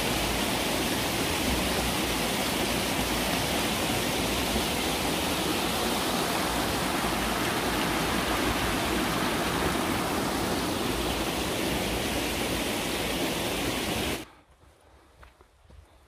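Fast-flowing rocky mountain stream rushing steadily over stones, cutting off suddenly near the end.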